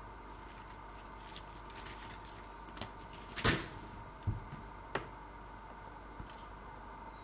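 Clear plastic bacon packaging being handled, with a few crinkles and clicks, the loudest about halfway through, and a dull knock just after. A faint steady hum lies underneath.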